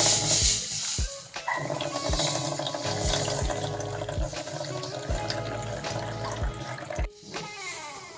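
Tap water running, heard over background music with a steady low beat.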